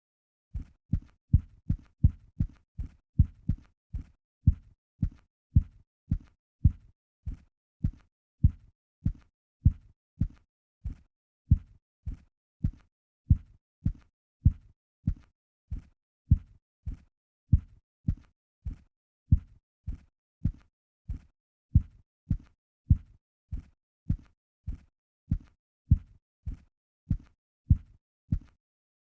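Typewriter keys struck one at a time at a steady pace, about two dull thumps a second. The strokes stop shortly before the end.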